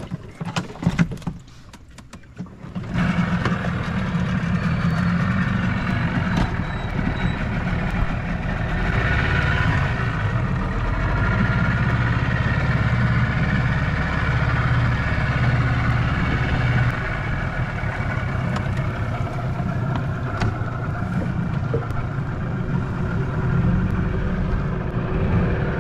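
Small outboard motor on an open skiff being started: a few knocks and clicks, then the engine catches about three seconds in and runs steadily as the boat gets underway.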